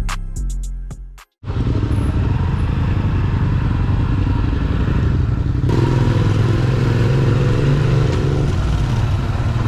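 Music with a drum beat cuts off about a second in, then a motorcycle engine runs steadily under way, with road noise.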